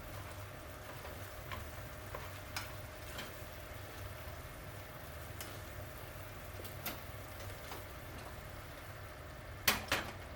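Food sizzling gently in a frying pan, with scattered light clicks of a utensil and two sharp clacks near the end.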